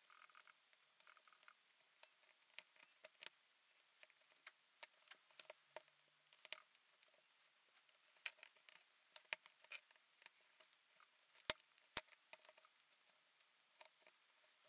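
A screwdriver prying along the ultrasonically welded plastic seam of a laptop battery case: faint, irregular clicks and small cracks as the plastic gives. Two sharper snaps come close together about three-quarters of the way through.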